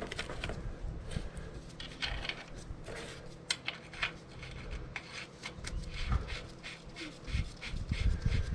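Irregular light clicks, ticks and rubbing of tools and parts being handled while working on a motorcycle's rear wheel and chain.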